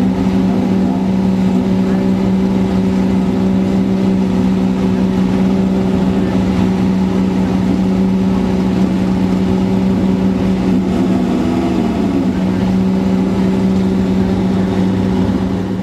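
An engine running at a steady, unchanging speed, loud and close. A second engine briefly rises and falls in pitch about eleven seconds in.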